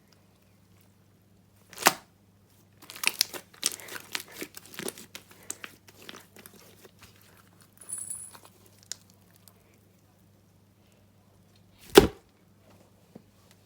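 Slime being squished and pulled by hand, making sticky crackling and popping sounds, with a sharp pop about two seconds in, a run of crackles after it, and a louder pop near the end.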